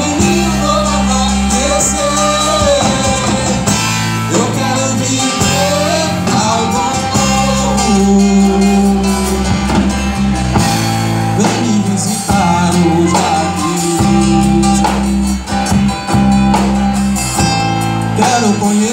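Live band playing through PA speakers: singers with drums and guitar over sustained bass notes that change every couple of seconds.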